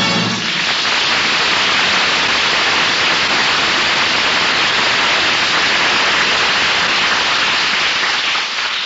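A loud, steady hiss of noise that starts as the music stops and fades out near the end.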